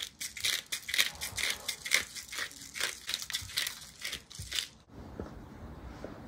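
Spice shaker shaken over a rack of pork ribs: quick, even rattles of dry seasoning, about four or five a second, stopping about five seconds in.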